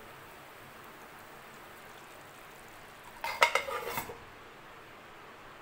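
Stainless-steel lid being set on a non-stick cooking pan, a short metallic clatter of several clinks lasting under a second, a little over three seconds in. Before that there is only a faint steady hiss.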